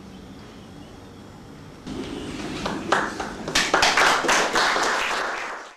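Audience applause: a few scattered claps about two and a half seconds in, building quickly into full clapping, then cut off abruptly near the end.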